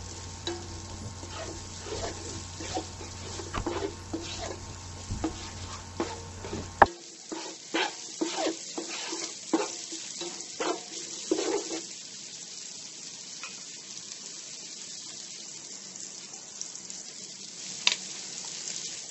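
Chopped onions sizzling in sesame oil in a nonstick frying pan, with a slotted spatula scraping and knocking against the pan about twice a second as they are stirred for the first twelve seconds or so, then a steady sizzle. A single sharp click comes near the end.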